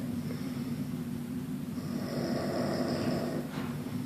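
A sleeping person snoring: a steady low drone, with a louder snoring breath from about two seconds in.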